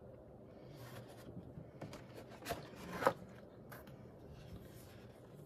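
Loose sheets of heavy coloring-book paper being handled: faint rustling and sliding as one page is put down and the next taken up, with two short taps about two and a half and three seconds in, the second the louder.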